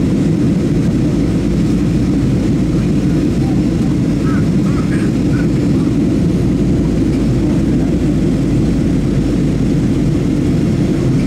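Steady low roar inside the cabin of a Boeing 737-700 climbing after takeoff, heard from a window seat over the wing: its CFM56 turbofan engines and the rush of air over the fuselage, unchanging throughout.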